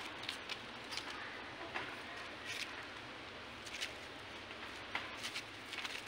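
Dry fallen leaves crackling in short, scattered ticks as young macaques scuffle and wrestle on leaf litter, over a steady outdoor hiss.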